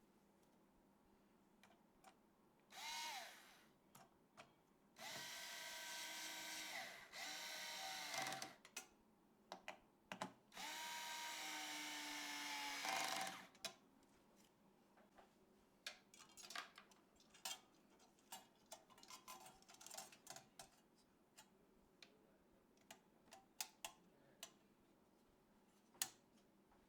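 Small electric screwdriver whirring in four short runs, each starting and stopping abruptly, in between light clicks and taps from parts being handled.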